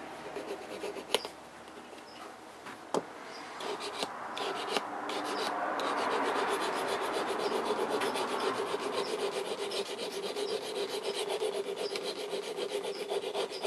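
Hand-held Eze-Lap diamond hone rubbing along the steel blade of a pair of bypass pruners as they are sharpened. A couple of sharp clicks come in the first few seconds, then quick, steady rasping strokes from about four seconds in, growing louder past the middle.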